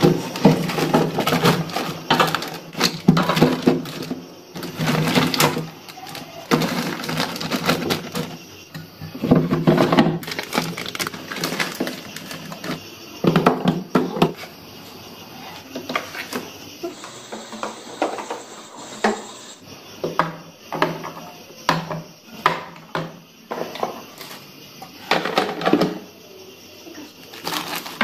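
Plastic zip-lock bags of vegetables rustling and crinkling as they are handled and packed into a fridge, with light knocks of plastic boxes and drawers. The sound comes in irregular bursts, quieter for a few seconds past the middle.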